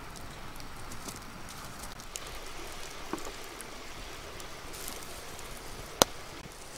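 Small open wood fire crackling, with scattered small pops and one sharp, much louder pop near the end.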